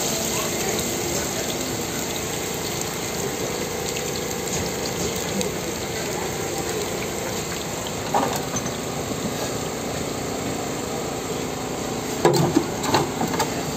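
Spiral-cut potato on a skewer deep-frying in a steel tray of oil, sizzling steadily. A few sharp knocks come near the end as a potato is set on a metal spiral potato cutter.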